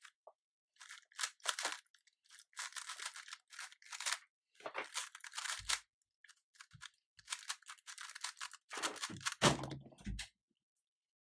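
A 3x3 speed cube being turned fast in a solve: quick, irregular runs of plastic clacking and clicking as the layers snap round, with short pauses between runs. Two low thuds come near the end.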